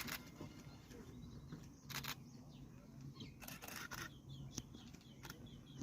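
Quiet outdoor ambience with faint small-bird chirps, broken by several short rustles or knocks.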